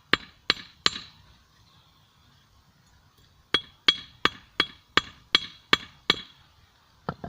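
A one-kilo hand hammer strikes a forged steel screw blade on a 25 lb anvil in the last flattening blows, each with a bright metallic ring. Three blows come at about three a second, then a pause of about two and a half seconds, then eight more at the same pace. Two light quick taps follow near the end.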